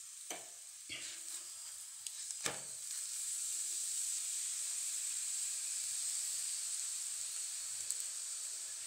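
Oil sizzling under a cabbage-stuffed paratha frying on a hot tawa: a steady high hiss that grows a little louder after about three seconds. A few light clicks come in the first few seconds.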